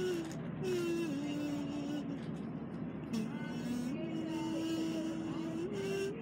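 A slow line of long held notes from a small instrument played at the mouth, stepping and sliding between pitches: a high note drops to a lower one about a second in, dips lower still near three seconds, then holds a middle note and rises near the end. A steady rushing noise lies underneath.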